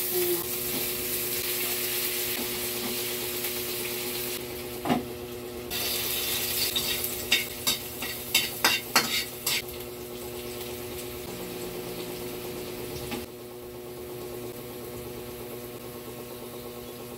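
Food sizzling in a hot pan as vegetables are added and stirred, with a spatula clicking and scraping against the pan several times in the middle. The sizzle drops to a softer hiss for the last few seconds, over a faint steady hum.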